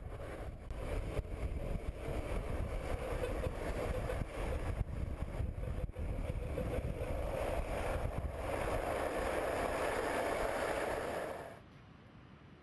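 Steady rolling noise of wheels running fast over asphalt, with wind rumbling on the microphone, cutting off sharply near the end.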